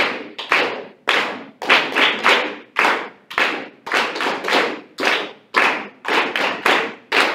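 Hands clapping a rhythm of eighth and quarter notes in steady time, about three claps a second with a few longer gaps, each clap ringing briefly in the room.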